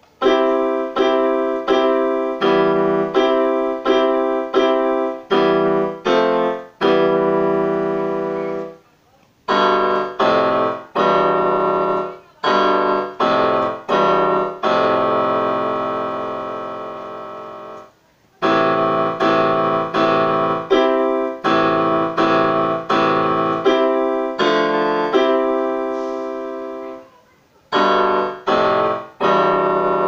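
Electric keyboard with a piano sound, played as slow chords struck about once a second, each left to fade. The phrases break off briefly three times, and a few chords are held for several seconds.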